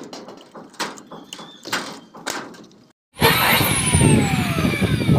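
Scattered metallic clicks and snaps from a hand pop-rivet gun setting rivets in sheet-metal wall flashing. About three seconds in, a corded electric drill starts loudly, driving into the steel wall cap, its whine falling steadily in pitch as it runs.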